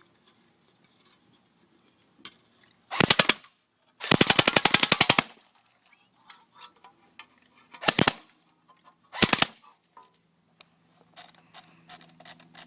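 Airsoft M4 rifle firing on full auto in four bursts of rapid shots. The second burst is the longest, about a second.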